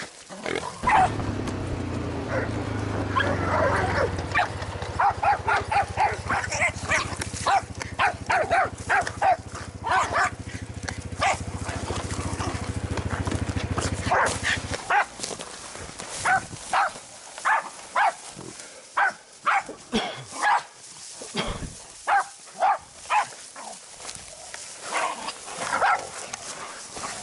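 Pig-hunting dogs, Jack Russell terriers among them, barking in rapid bursts at a feral boar they are holding at bay. A steady low hum runs under the barking in the first half and stops abruptly about halfway through.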